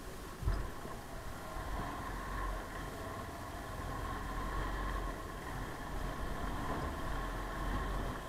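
Motorcycle engine running steadily while riding, with one thump about half a second in.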